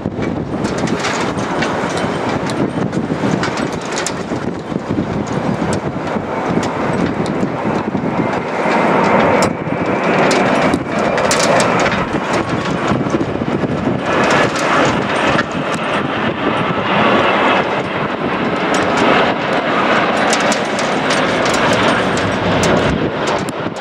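Jet engine roar of a Boeing 787-8 airliner on final approach to land, swelling about eight seconds in and staying loud, with wind buffeting the microphone throughout.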